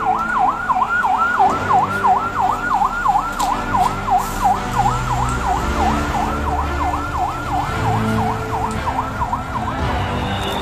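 Police vehicle siren on a fast yelp, sweeping up and down about three to four times a second, stopping shortly before the end.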